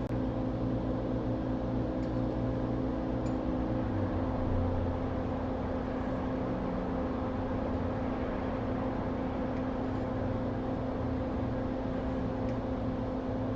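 Steady hum and rush of air from a hot-air rework station blowing on the circuit board; the low rumble shifts about four seconds in.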